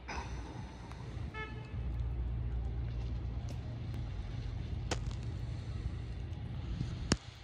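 Outdoor low rumble with a short pitched toot just over a second in and a sharp click near the end.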